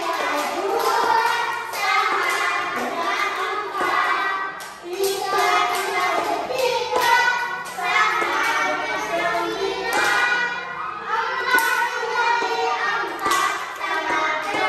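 A class of young children singing a multiplication song together in Indonesian, with a few sharp knocks in between.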